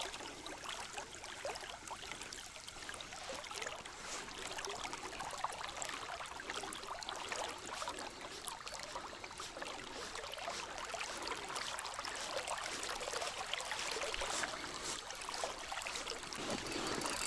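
River water trickling and splashing around the oar blade of an inflatable boat moving on the current: a steady, light watery patter with many small drips and ticks.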